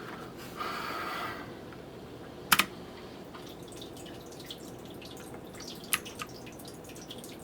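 Kailh Blue switches of a mechanical keyboard being pressed: scattered sharp clicks, the loudest about two and a half seconds in and another near six seconds, with fainter clicks between. A brief softer noise comes about half a second in.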